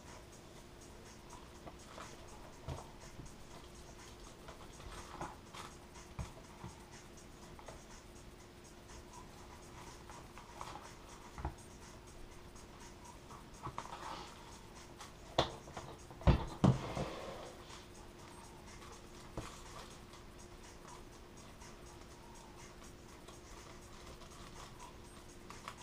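Scattered scratches, rustles and light clicks of hands working laminating film and tools over a foam RC-plane wing, with a few louder knocks about two-thirds of the way through, under a faint steady hum.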